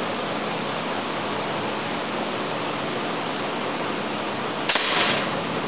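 Homemade copper pneumatic air gun, charged to 300 PSI, fired once near the end: a sudden release of air that rushes for about half a second. A steady background hiss runs underneath.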